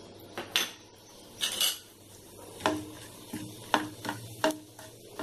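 A spatula stirring in a nonstick frying pan, giving several light knocks and scrapes against the pan, over a faint sizzle of whole cumin seeds, cinnamon and black cardamom starting to fry in hot oil for a tadka.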